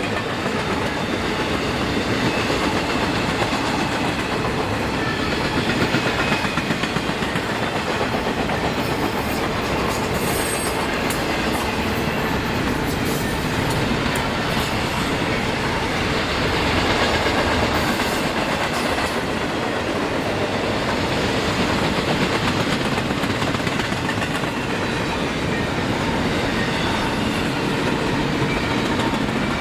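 A long train's cars rolling steadily past trackside, wheels clicking over the rail joints with a continuous rumble.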